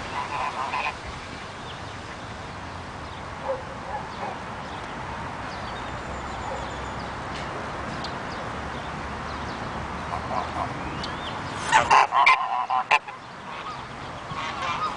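Domestic white geese honking: a couple of short calls at the start, a loud burst of honks about twelve seconds in, and more calls near the end, over a steady background hiss.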